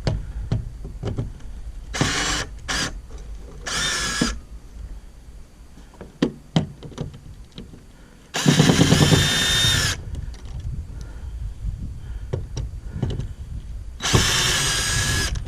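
Power drill running in five short bursts into wooden door framing, with a whining motor. Two of the bursts, about a third of the way in and near the end, each last over a second. Faint clicks and handling knocks fall between them.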